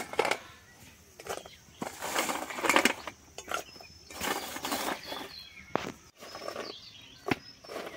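Fried dough sticks dropped into hot, bubbling sugar syrup in an iron kadai, with irregular bursts of hiss and a few sharp clicks of the pieces and the slotted spoon on the metal; the loudest click comes near the end.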